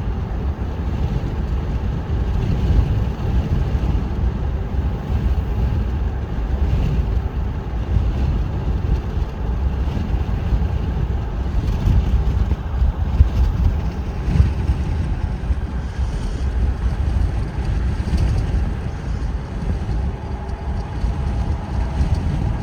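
Road and wind noise of a car driving at about 35 mph: a steady, loud low rumble.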